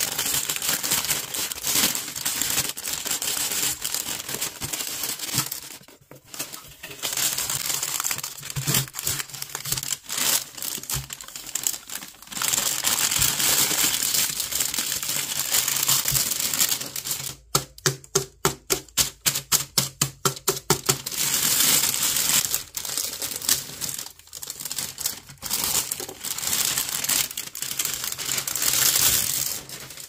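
Thin plastic bags crinkling and rustling as they are handled and pulled open. A little past the middle comes a quick run of sharp crackles, about six a second.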